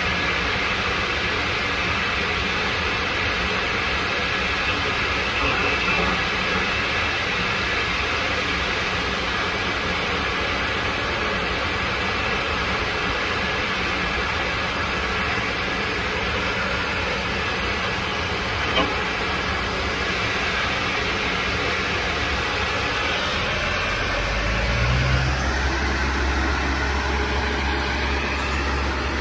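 Pushback tug's engine running steadily under the constant high whine of an airliner's engines on the ramp. Near the end the engine note rises as it revs up under load.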